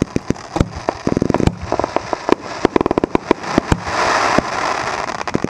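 Fireworks cake firing: a rapid string of sharp shots, several a second, as its tubes launch, with bursts of fast crackling and a louder rushing crackle about four seconds in.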